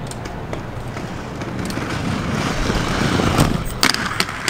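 Inline skate wheels rolling on concrete, growing louder over a couple of seconds, then a few sharp clacks near the end.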